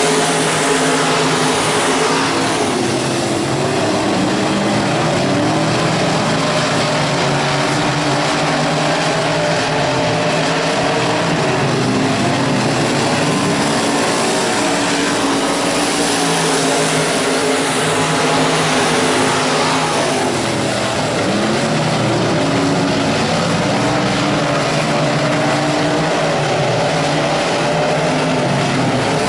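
A field of dirt-track limited modified race cars running hard around the oval together, several engine notes overlapping and rising and falling as the cars lift and accelerate through the turns.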